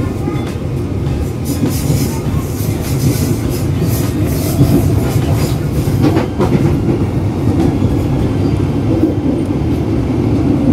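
Commuter electric train running along the track: a steady low rumble, with a run of wheel clacks and rattles over the rails in the first half.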